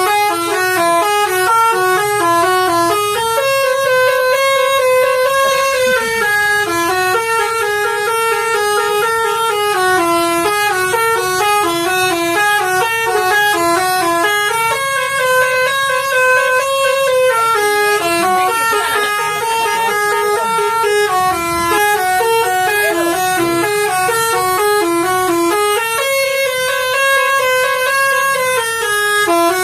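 Bus telolet horn, a set of musical air horns, playing a quick melody of short stepping notes with a few longer held notes; the phrase repeats about every eleven seconds.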